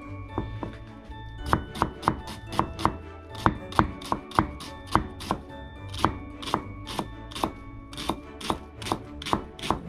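Chef's knife chopping an onion on a plastic cutting board: sharp knife taps, a few sparse ones at first, then about three a second.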